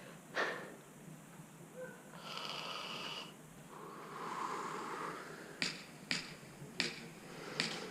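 Faint breathing close to the microphone, with several short sharp clicks in the last couple of seconds.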